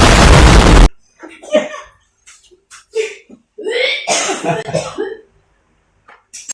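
A sudden loud blast of distorted noise that cuts off just under a second in, then a person's put-on coughing and hacking in several short fits, faked as if coughing up blood.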